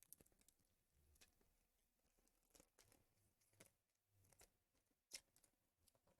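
Near silence with scattered faint clicks and light handling noises, the clearest one about five seconds in.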